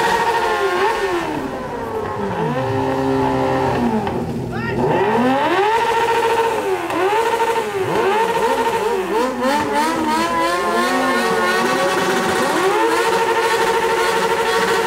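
Three inline-four motorcycles, a Honda CB1000R, a Honda Hornet 600 and a Yamaha XJ6, revving together with their exhausts blowing into a swimming pool and throwing up a jet of water. Their engines are held at high revs, then drop and climb again and again out of step with one another, then are held high again near the end.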